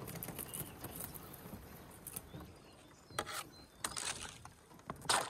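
Thin skim ice on the water crackling and tinkling as a kayak bow pushes through it, with several sharper cracks from about three seconds in.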